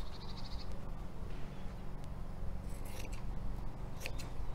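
Scissors cutting through fabric, with a few crisp snips about three and four seconds in, over a low wind rumble on the microphone.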